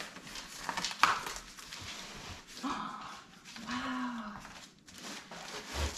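Cardboard shipping box being torn and pulled open, with scraping and rustling of the card and a sharp rip about a second in. Partway through come two short, low vocal sounds whose pitch rises and falls, like a moan.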